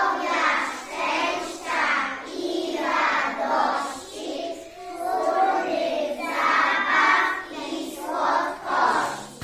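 A group of young children singing together in unison, a children's choir in phrases with short breaks between them.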